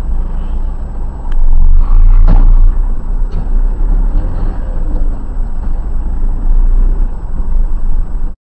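Steady low rumble of a car driving in traffic, picked up by a dashcam inside the cabin, loudest about two seconds in, with a few light clicks. It cuts off suddenly near the end.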